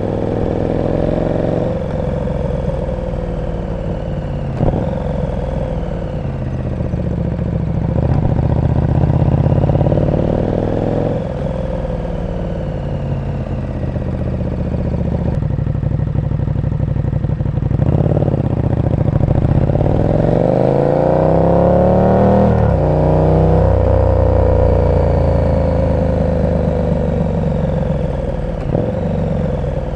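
KTM 1290 Super Duke R's V-twin engine through an aftermarket exhaust, revving up and rolling off repeatedly as the bike pulls through the gears, with brief breaks at the shifts. The revs sweep sharply up and back down about two-thirds of the way in.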